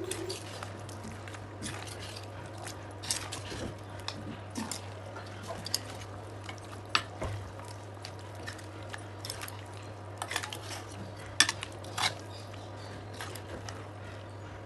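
A cooking spoon stirring chicken pieces and masala in a pan, scraping and clinking against the pan at irregular moments.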